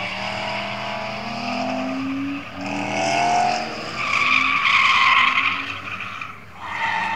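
BMW drift car's engine revving up and dropping back as it slides through a corner, then a loud tyre squeal for about two seconds starting about four seconds in.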